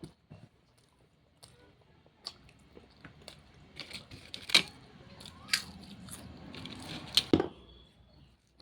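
A person chewing a mouthful of jackfruit curry close to the microphone, with wet mouth clicks and smacks. The loudest smacks come about halfway through and near the end.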